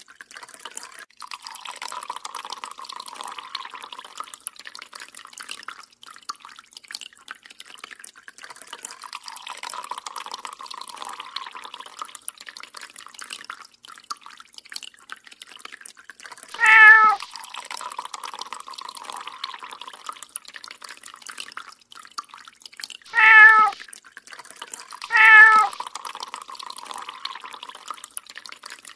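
Water dripping and trickling from a kitchen tap into the sink, and a cat meowing three times in the second half, each meow short and much louder than the water.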